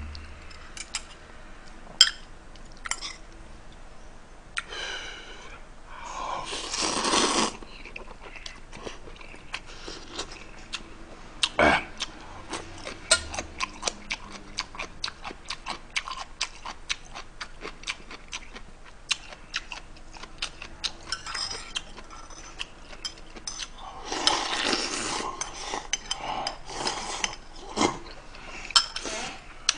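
Close-miked eating of shrimp ramen: chewing and mouth sounds with many small clicks of a spoon and fork against a ceramic bowl, and two longer, louder slurps of noodles and broth, about six seconds in and again near the end.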